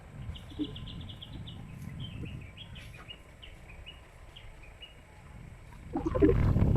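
A bird calling: a quick run of short high chirps, then slower, spaced chirps, over a faint low rumble. Near the end a loud low rumble comes in.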